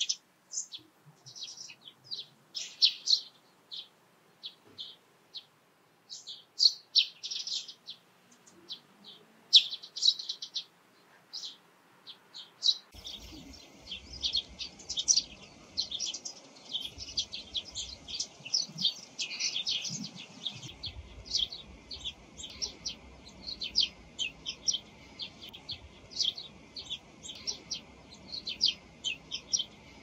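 Eurasian tree sparrows chirping. For the first dozen seconds the chirps come singly or in short clusters with gaps between them. About 13 seconds in the sound changes to dense, near-continuous chirping over a low background rumble.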